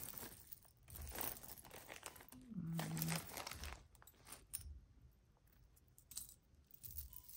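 Clear plastic bag crinkling and metal costume jewelry (bangles and chains) clinking and jingling as hands rummage through a tangled pile, in irregular small rustles and clicks. A brief low hum sounds about a third of the way in.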